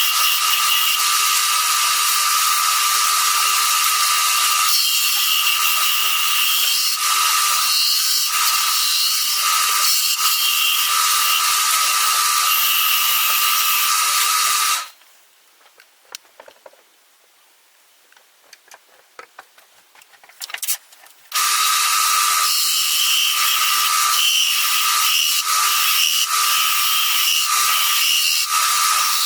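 Wood lathe running steadily with a constant whine over a hiss. About halfway it stops abruptly for some six seconds, leaving only faint taps and clicks, then runs again.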